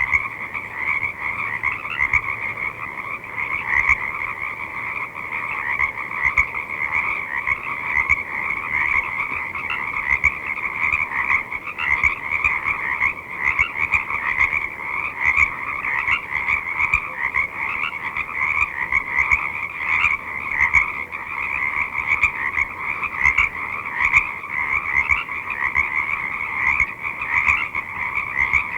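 A dense chorus of many frogs calling together in a swamp, croaking and peeping over one another without a break.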